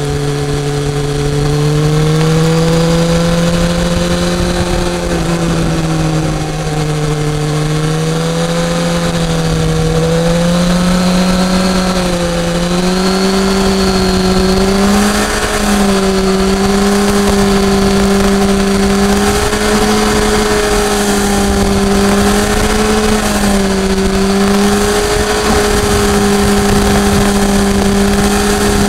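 BMW S1000R inline-four engine running at steady riding revs. Its pitch drifts gently up and down with the throttle, climbing gradually over the first half and then holding, over a steady rush of wind noise.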